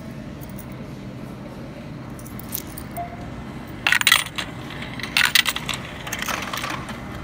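Quarters being fed into the coin slot of an NCR self-checkout machine, clinking and rattling through the coin acceptor in two sharp bursts about four and five seconds in, with lighter clinks after.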